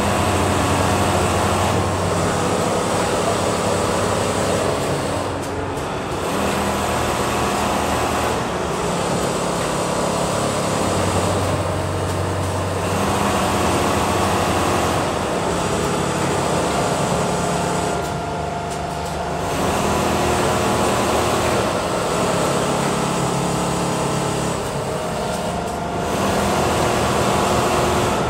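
Automatic sewing machines and workshop machinery running: a steady mechanical din with humming tones that swell and ease every few seconds.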